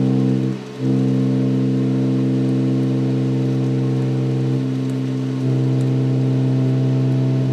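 Spector Euro five-string electric bass played through an amplifier after a setup, as a check for buzzes or other unwanted noises. A held two-note chord sustains evenly, breaks off about a second in and is struck again.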